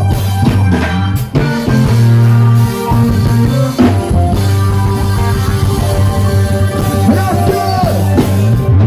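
Live reggae band playing, with a heavy bass line throughout and a gliding voice-like melody near the end.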